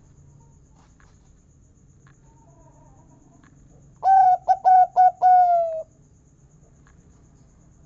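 Perkutut (zebra dove) singing once about halfway through: a quick run of four short coos that runs into one longer, slightly falling coo.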